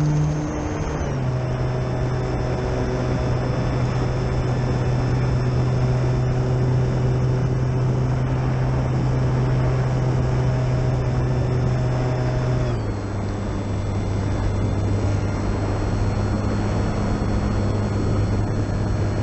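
Durafly Tundra RC plane's electric motor and propeller in flight: a steady drone with a thin high whine over rushing air noise. About two-thirds of the way through, the pitch drops a step to a lower steady drone as the throttle is eased back.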